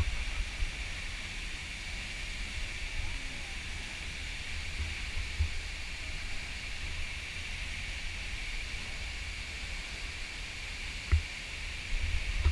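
Steady rushing roar of a tall waterfall plunging into its pool, with low buffeting on the microphone and a single bump about eleven seconds in.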